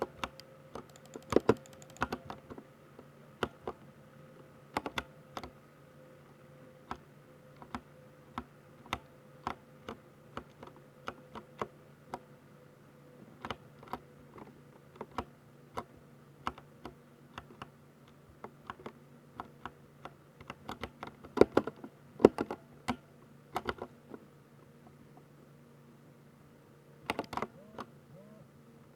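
Typing on a Ducky 60% mechanical keyboard with silver switches: irregular keystroke clicks with short pauses, a few louder clusters of strokes about a second and a half in and again past twenty seconds, over a faint steady hum.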